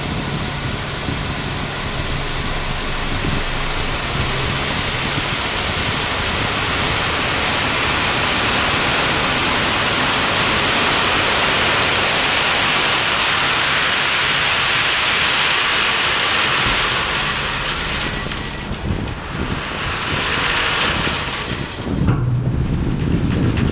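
Crushed rock pouring and sliding off the tipped body of a loaded cassette dump truck onto a grated hopper: a continuous rushing hiss that builds over the first several seconds and thins out near the end. The truck's engine runs low underneath and comes up louder at the very end.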